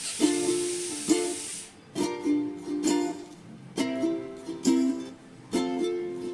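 Background music: a light tune of plucked string notes in a regular rhythm, with a steady hiss under it that stops about two seconds in.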